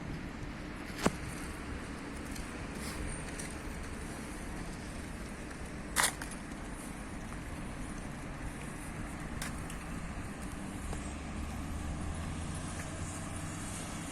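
Steady road traffic noise, with a sharp click about a second in and a louder, slightly longer click or knock about six seconds in; a low engine hum grows stronger near the end.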